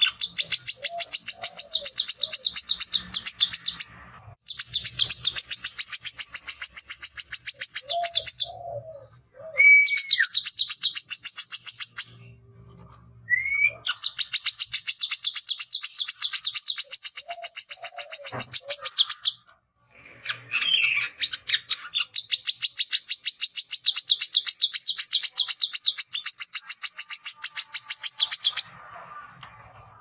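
Male brown-throated sunbird singing its fast chattering song. It comes in about five long runs of rapid, high ticking notes, each a few seconds long with short pauses between, plus a couple of short slurred whistles near the middle.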